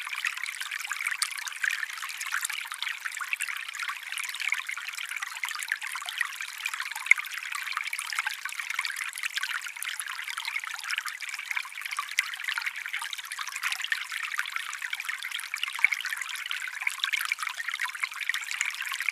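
Shallow forest stream trickling and babbling steadily, a thin, bright water sound with no deep rush, with a couple of slightly louder splashes about seven seconds in and near the end.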